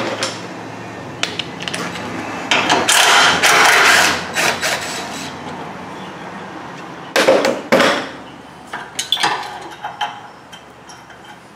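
Cordless ratchet and socket working a bracket bolt, running in short bursts of noisy clatter, with sharp clicks and knocks of metal tools and plastic between them.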